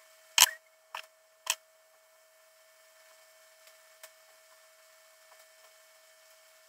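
Needle-nose pliers clicking against a small metal jump ring while it is opened and fitted to a pendant: three sharp clicks in the first second and a half, the first the loudest, then a few faint ticks.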